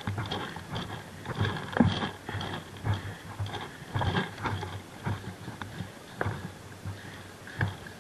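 Footsteps of a player moving over the ground, an irregular run of short thuds and knocks about one every half second to a second.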